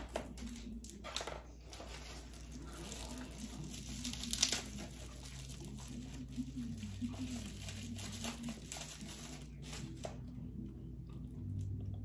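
Packaging crinkling and tearing as a cosmetic product is unwrapped by hand, a run of uneven crackles with a louder rustle about four and a half seconds in.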